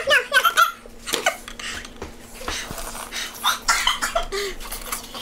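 Women's voices coughing, breathing hard and laughing, with a few unclear words, from the burn of very hot chicken wings.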